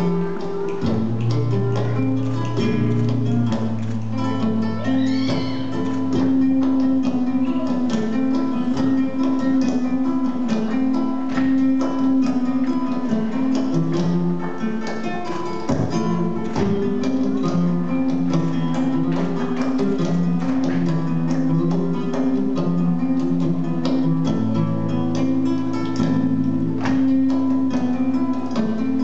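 Live flamenco music in the cantiñas style, with acoustic guitar playing. Sharp strikes run through it, from the dancers' shoes on the stage floor.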